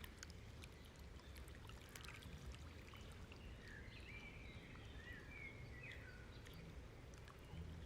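Near silence: faint room tone, with a few faint, high, short chirps about four to six seconds in.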